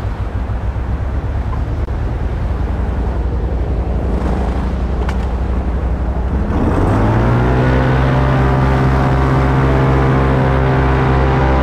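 Airboat engine running with its air propeller, a low throbbing that about six and a half seconds in rises in pitch and settles into a steady, louder drone as the throttle is opened.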